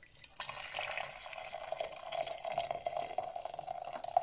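Warm water poured in a steady stream into a ceramic container holding whole rosehips, starting about half a second in, splashing and filling with an even pitch.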